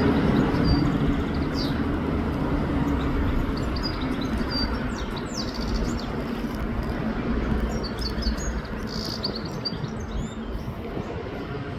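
European goldfinch twittering in short, scattered chirps over a steady low rumble, which is the loudest sound and eases off slightly toward the end.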